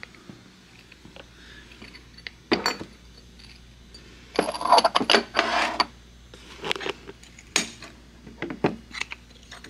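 Glass and ceramic ornaments being handled and set down on a table: scattered light clinks and knocks, with a longer run of clattering about four and a half to six seconds in.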